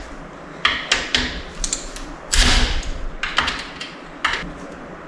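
Irregular metallic clicks and clunks of hand tools and transmission parts being handled, about five knocks with the loudest about two and a half seconds in.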